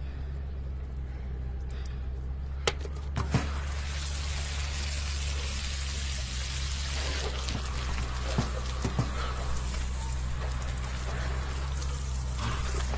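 Outdoor shower running, its water hissing and splashing over a man's head and body. The hiss grows louder about four seconds in. A steady low hum sits underneath, and there are a few sharp clicks.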